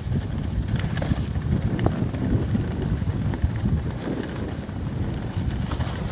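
Wind buffeting the microphone during a ski run, a steady low rumble with skis running over the snow and a few faint clicks.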